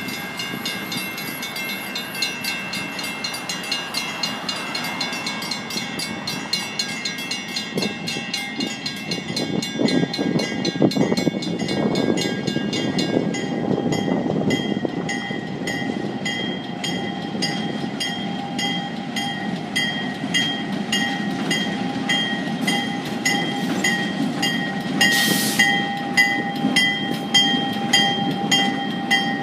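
Railroad grade-crossing bell ringing in an even, rapid rhythm. Under it, the diesel engines of two ex-Santa Fe CF7 locomotives rumble, louder from about a third of the way in as the light engines draw near and cross. A brief hiss comes near the end.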